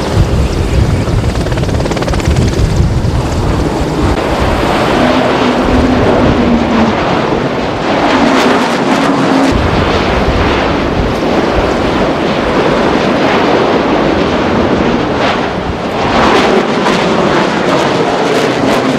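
Loud, steady aircraft engine noise mixed with wind on the microphone, swelling again near the end as a jet flies past with a falling pitch.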